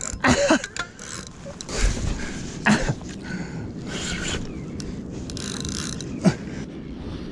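Spinning reel wound hard against a hooked fish on a bent rod, its gears whirring in spells, with several sharp clicks and knocks of handling.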